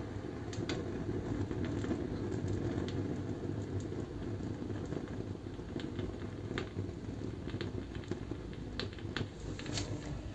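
Homemade copper-coil alcohol stove burning with a large flame: a steady low rushing noise, with scattered sharp crackles and ticks through it.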